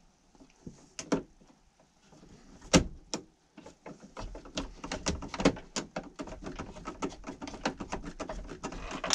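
Screwdriver working the terminal screw of a 30 amp circuit breaker in a metal panel: a few sharp knocks, then from about four seconds in a long run of quick small clicks as the screw is turned.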